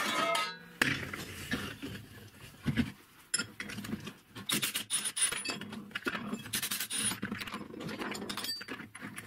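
Workshop handling noises: metal parts, nuts and washers clinking, knocking and rubbing on a workbench.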